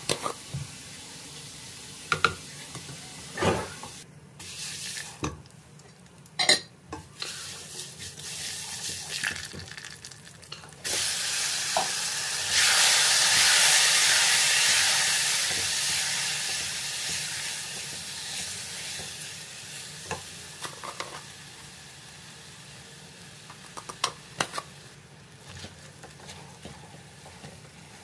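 Rice and browned vermicelli frying in a nonstick pan while a silicone spatula stirs them. A few knocks of the utensil come first; about eleven seconds in, a loud sizzle starts suddenly, then slowly dies down, with a few more light clicks of the spatula near the end.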